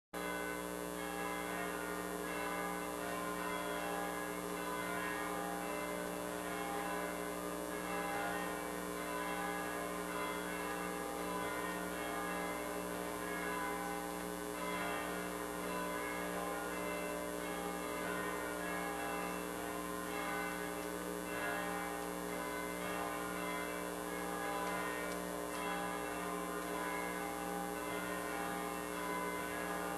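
Church bells ringing steadily, the many tones running together, over a low electrical hum.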